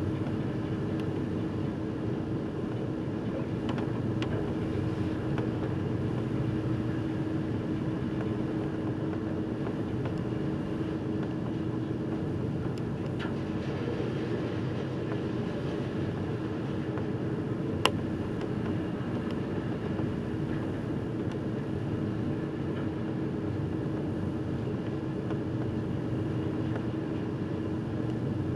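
Steady drone of a car ferry under way: its engines and machinery give a constant hum over a low rumble. A single sharp click comes about two-thirds of the way through.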